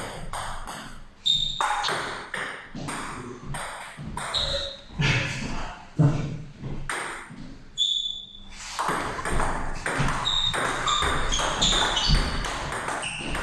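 Table tennis ball being hit back and forth in a rally: a run of sharp, irregular clicks as the plastic ball strikes the bats and bounces on the table, many with a short high ping.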